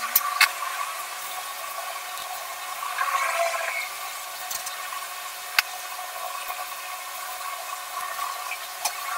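Soft graphite pencil scratching and shading on sketchbook paper: a steady scratchy hiss over a constant hum, swelling a little about three seconds in, with a few sharp ticks.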